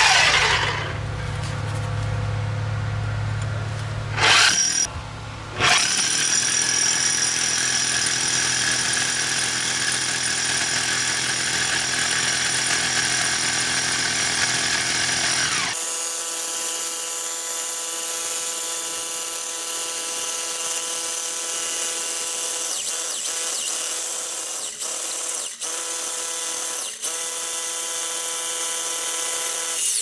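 Milwaukee corded rotary hammer in hammer-and-drill mode, boring a 1-inch masonry bit through a concrete foundation wall: a steady, loud motor whine with hammering. It stops briefly about five seconds in and then runs on, with a few short dips near the end.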